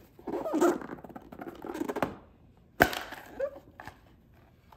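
Hard white plastic travel bowl being handled, with rubbing and scraping in the first two seconds, then one sharp snap a little under three seconds in as the lid is pulled off the bowl.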